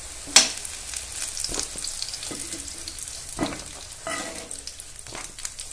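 Mustard oil sizzling in a non-stick pan as fried eggplant pieces are lifted out with a metal spoon. The spoon knocks against the pan several times, most sharply about half a second in.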